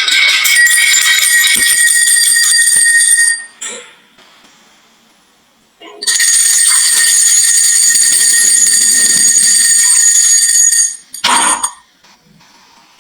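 Many glass marbles clattering and clinking together in a dense, ringing rush. This comes in two long stretches separated by a few quiet seconds, then a short burst of clatter near the end.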